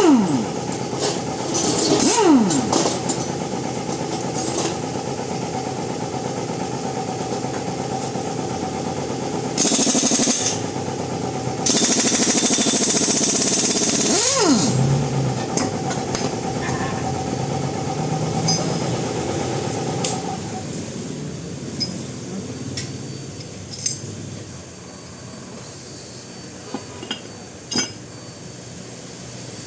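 Power tools working in an auto repair shop: a machine runs steadily with short loud blasts of hiss, and a spinning tool winds down in pitch three times. After about twenty seconds it goes quieter, with scattered clinks.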